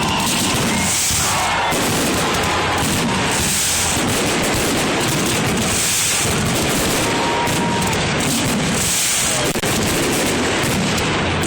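Fireworks display: aerial shells bursting in a dense, continuous barrage of bangs and crackles.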